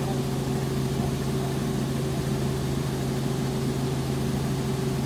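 Light helicopter's engine and rotor running steadily in cruise, heard from inside the cabin as a constant drone with a steady low hum.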